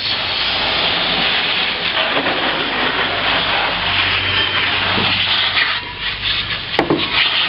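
Garden hose spray nozzle misting water over a car engine, hissing steadily. The spray dips briefly about six seconds in, and there is a short click near the end.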